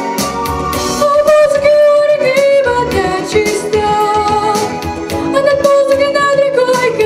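A pop-style song played over a backing track with a steady drum beat, with long held sung notes.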